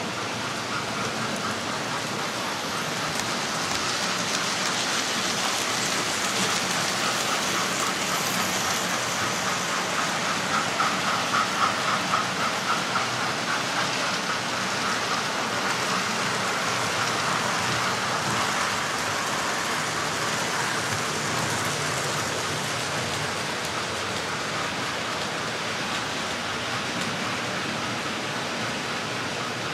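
Several model railway trains running together on the layout: a steady rushing whir of small electric motors and wheels rolling on the rails, swelling slightly about ten to thirteen seconds in.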